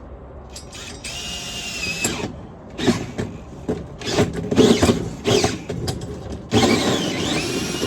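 Power drill driving a hole saw through the thin plastic back of a blow-mold figure, in several runs. The motor whines in a short run, then in choppy bursts while cutting, and near the end its pitch dips under load and climbs back.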